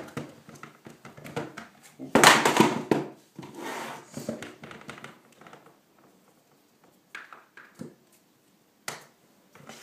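Handling noise while getting ready to pump up a pram wheel's inner tube: a loud rushing, rustling burst about two seconds in, a quieter one just after, then a few light clicks and knocks.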